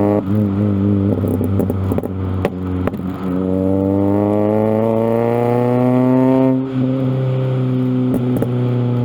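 Suzuki Wagon R+'s M16A four-cylinder engine with a straight-piped exhaust, crackling with a few sharp pops in the first three seconds. Then its note rises steadily as the car accelerates, dips briefly about seven seconds in, and settles into steady running. The pops come from fuel lighting in the exhaust after the ignition is switched off and on while coasting in gear.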